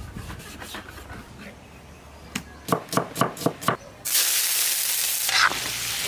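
A kitchen knife chopping through pork belly onto a wooden cutting board, about six quick strokes. Then, about four seconds in, a loud, steady sizzle as cubes of pork belly fry in hot oil in a wok.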